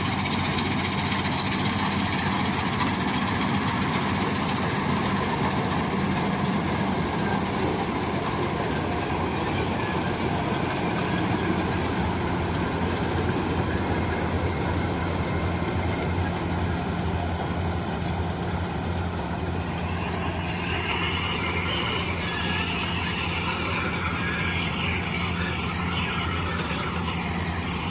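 Kartar 4000 combine harvester running steadily, its diesel engine and machinery holding an even pitch. A higher-pitched machine noise joins about twenty seconds in.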